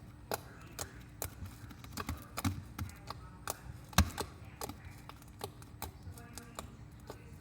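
Homemade slime being squeezed and poked by hand, giving off irregular sharp clicks and pops, a few a second, the loudest about 4 seconds in.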